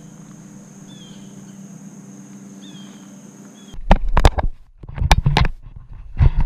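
Faint steady outdoor hum with a few short faint chirps, then from about two thirds of the way in a run of loud knocks and rubbing: close handling noise as a caught largemouth bass is held and moved right against the camera.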